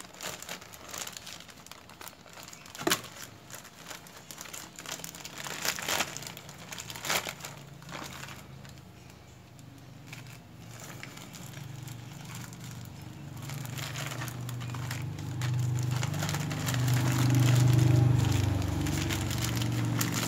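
Plastic courier pouch and product packaging crinkling and crackling as they are handled and pulled open, with sharp crackles in the first half. A low rumble swells from about halfway through and is loudest near the end.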